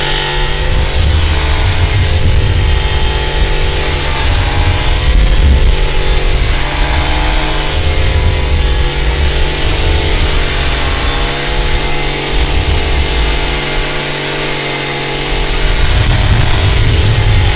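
Chainsaw engine running and revving up and down repeatedly, as when cutting wood.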